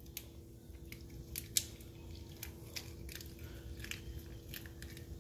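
Raw lobster tail shell crackling and clicking in the hands as it is pried open and the meat lifted out over it, with two sharper cracks about one and a half seconds in. A faint steady hum runs underneath.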